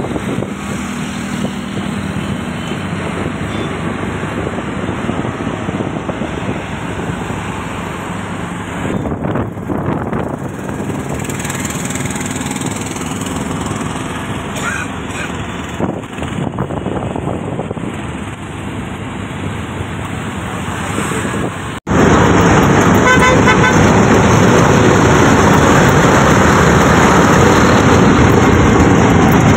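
Riding in an open auto-rickshaw in city traffic: the rickshaw's small engine running, with road and wind noise and a few horns honking. It gets louder and harsher about two-thirds of the way through.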